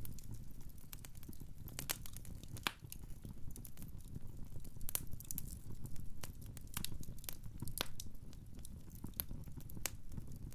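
Wood logs burning in a fireplace: irregular sharp crackles and pops, several a second, over a low steady rumble of the flames.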